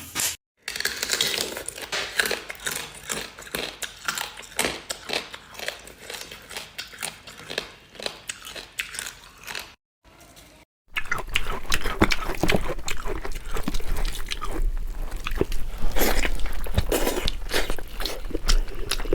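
Close-up chewing and crunching of food, many irregular crunches. About ten seconds in there is a brief silent cut, followed by dense crackling over a steady low hum.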